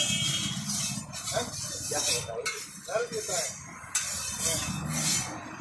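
Metal spatula scraping and spreading oil across a hot tawa in repeated strokes, with the oil sizzling on the heated griddle.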